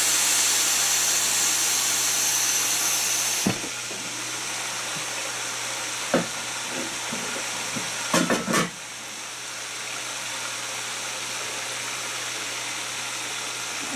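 Stovetop pressure cooker of chicken frying in oil hissing steam as it is uncapped; the hiss cuts off suddenly about three and a half seconds in with a knock, leaving the oil sizzling steadily. A knock a couple of seconds later and a quick run of metal clanks near the middle.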